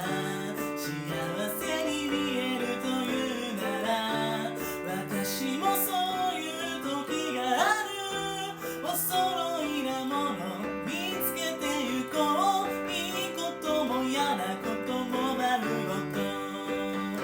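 A voice singing a pop song over steady instrumental accompaniment.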